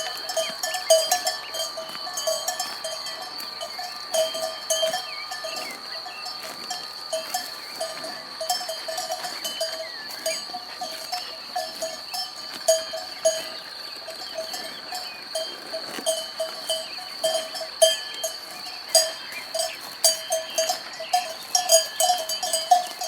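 Cowbells clanking and ringing in an irregular, uneven rhythm, several strikes close together at times, like bells on grazing livestock.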